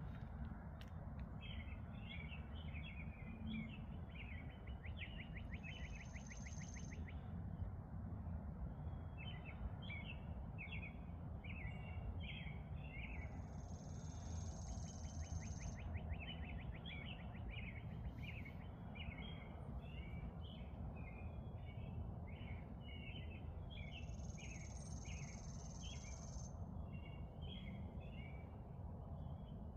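Songbirds chirping over and over in quick phrases, with a high, thin trill coming in three times, over a steady low background rumble.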